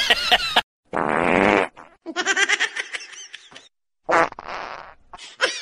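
A husky's howl breaks off, and then a short, loud buzzing fart sound lasts under a second. Shorter rising and falling squeaky sounds follow.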